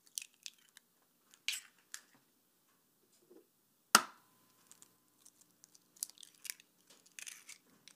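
Eggs being cracked by hand into a glass bowl: faint crackles and clicks of eggshell breaking, with one sharp tap about halfway through that leaves a brief faint ring.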